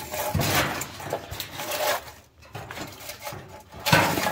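Rustling and knocking of things being handled and moved about, busiest in the first two seconds, with a louder clatter about four seconds in.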